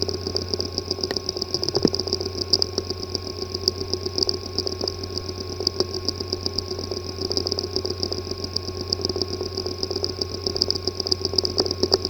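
Hard disk drive with a physically damaged disk assembly, running with a steady hum and a fast, rough ticking buzz: the sound of internal head or platter damage.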